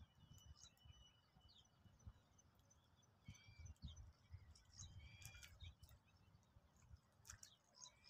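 Sparrows chirping faintly in three short clusters of high calls, a second or two apart, over a faint low rumble.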